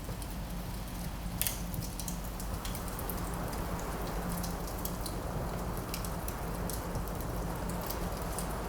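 Wood fire crackling in a fireplace, with scattered sharp pops, the loudest about a second and a half in, over a steady rush of wind that swells slightly about three seconds in.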